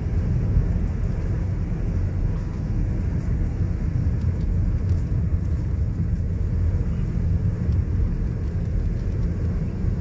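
Steady low rumble of a car driving along a sealed road, heard from inside the cabin: engine and tyre noise.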